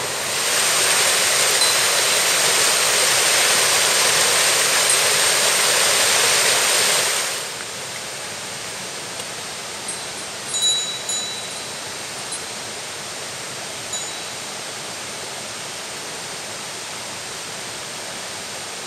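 Mountain stream water rushing over a small cascade, a steady hiss that drops to a quieter, even flow about seven seconds in. A few short, high-pitched chirps come around ten to fourteen seconds in.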